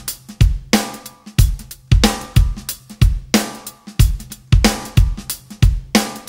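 Background music without singing: a drum kit plays a steady beat of bass drum, snare and cymbals, about two hits a second.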